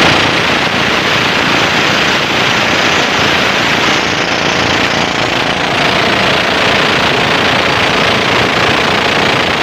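Small inboard engine of a fiberglass flat boat running steadily under way, driving a long propeller shaft, mixed with the rush of water along the hull. Loud and constant throughout.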